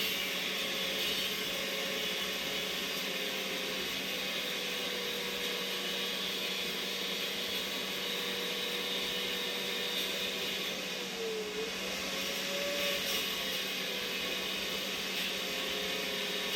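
Grinder with an abrasive cutting wheel grinding steel, working an Oregon chainsaw bar to make it fit a Stihl Farm Boss. The motor whine holds steady under the grinding hiss, and its pitch sags briefly and recovers a little past the middle as the wheel bites harder.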